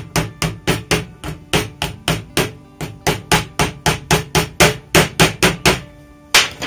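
Small steel-headed hammer tapping quickly on a twisted-wire hose clamp, about four light blows a second, knocking the cut tag ends of the wire down flat against the hose. A short pause comes near the end, then one last tap.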